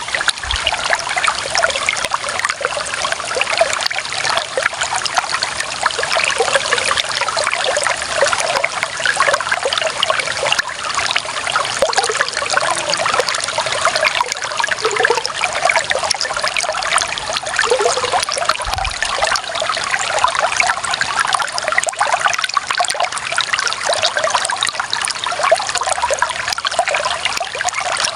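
Clear running water trickling and splashing steadily, a small stream spilling over stones, with no pause or change.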